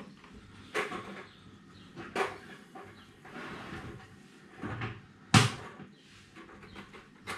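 A few scattered knocks and clunks from home-brewing gear being handled and set down, the loudest a sharp knock about five and a half seconds in.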